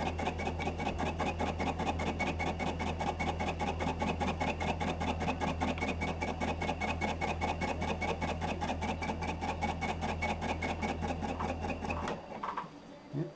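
Metal lathe turning slowly while a sharp tool takes a light cut on an off-centre crank pin of hardened steel, with a steady hum and a fast, even beat. It stops about twelve seconds in.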